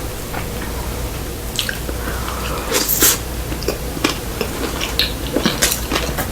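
A person chewing a mouthful of sushi close to the microphone: wet mouth sounds with many small, irregular clicks.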